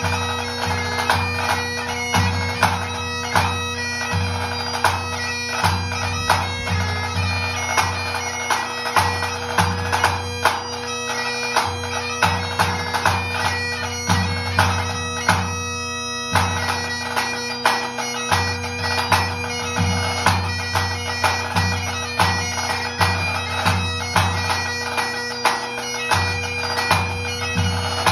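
Great Highland bagpipe playing a competition hornpipe/jig over its steady drones, with a tenor drum struck in time with the tune, its beats thudding low under the pipes. The sound cuts out for a split second a little past halfway.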